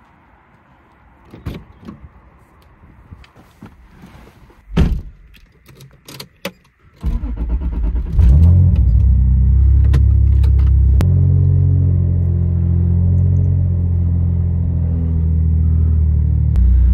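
Clicks and knocks of a car door and the driver getting in, then a Toyota Supra Mk4's 3.0-litre straight-six starts about seven seconds in and settles into a steady, loud idle. Its idle steps down a few seconds later.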